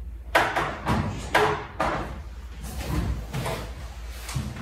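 Hollow plywood stand-up paddle board knocking and bumping against the sawhorses as it is flipped over and set down: about four sharp knocks in the first two seconds, then softer bumps and rubbing.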